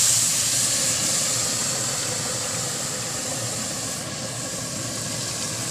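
Water poured into hot oil and rice in a kadai, hissing and sizzling loudly as it steams, slowly dying down.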